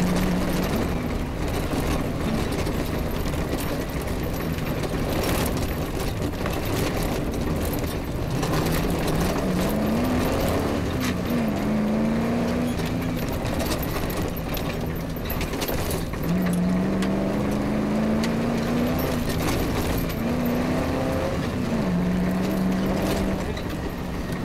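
Rally car engine running under load over rough grass tracks. Its pitch climbs and drops back several times as the car accelerates and the gears change, over a steady rumble and rattle of the car bouncing on the uneven ground.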